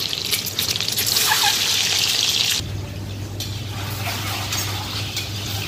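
Boiled eggs deep-frying in hot oil in an iron kadhai, a steady sizzle. About two and a half seconds in, the sizzle drops abruptly to a lighter level and a low steady hum comes in beneath it.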